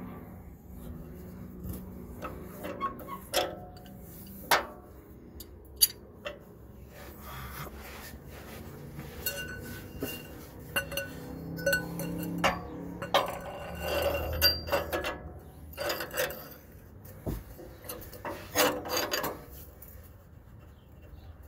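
Ratchet wrench and oxygen-sensor socket being worked on an exhaust oxygen sensor: irregular metallic clicks, clinks and rasping as the handle is swung back and forth to loosen the sensor.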